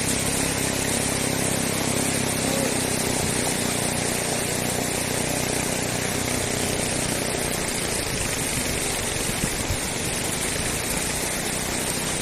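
A motor engine running steadily, its hum fading out about seven seconds in, over a steady rushing hiss.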